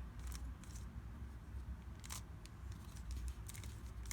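Rubik's cube layers being turned by hand: a few light plastic clicks, several close together near the end.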